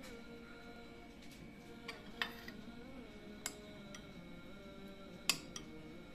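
A metal spoon clinking against a ceramic soup bowl about five times as it dips into the soup, the loudest clink a little after five seconds in. Soft background music with a sustained hum plays under it.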